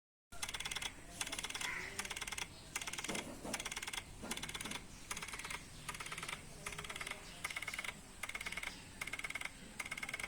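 Dell laptop hard drive clicking in regular bursts of fast ticks, each about half a second long, a little more than one burst a second: the clicking fault of a failing drive.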